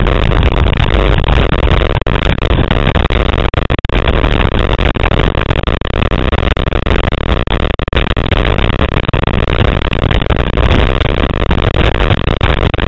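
Heavy wind buffeting the microphone of a camera on a Taipan 4.9 catamaran sailing fast in strong gusts, mixed with rushing water and spray. It is a loud, steady rumble that is strongest in the deep low end.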